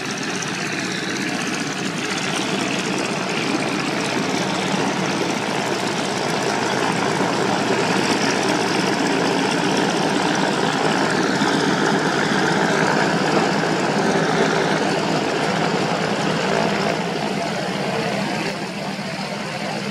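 Light aircraft's piston engine running steadily with the propeller turning, swelling a little in the middle and easing slightly near the end.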